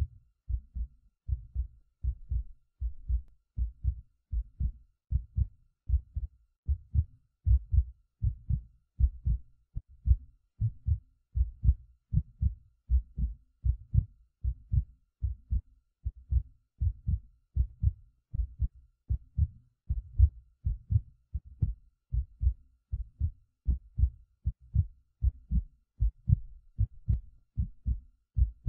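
Heartbeat sound: low, paired lub-dub thumps repeating in a steady, even rhythm.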